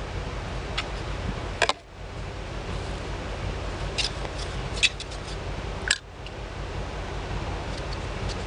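A few sharp clicks and taps from PVC pipe fittings and a primer can being handled, over a steady low rumble.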